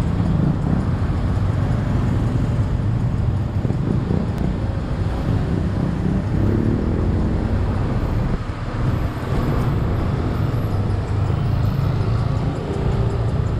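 Street traffic: a steady low rumble of car and motorbike engines passing close by.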